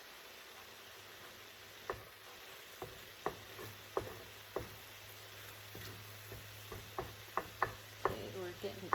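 Eggs and cauliflower rice frying in a pan with a faint steady sizzle, while a utensil stirs and scrapes, knocking against the pan now and then and more often near the end.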